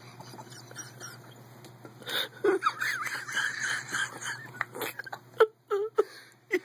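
Stifled, wheezy giggling held back under the breath, starting about two seconds in, with light clicks and rustles from a handheld camera.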